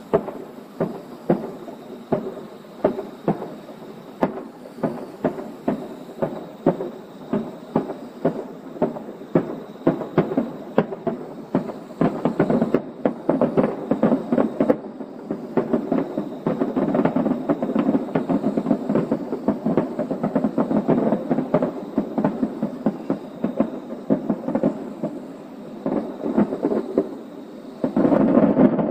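Aerial firework shells bursting in a steady barrage: sharp bangs about two a second, thickening midway into a near-continuous rumble of overlapping reports, with a loud cluster near the end.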